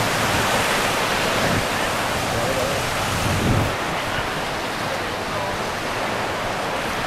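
Sea surf breaking and washing up a sandy beach, a steady rushing noise, with wind buffeting the microphone in low rumbles.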